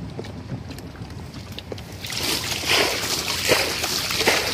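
Water splashing and sloshing, growing much louder and busier about two seconds in, with repeated uneven surges.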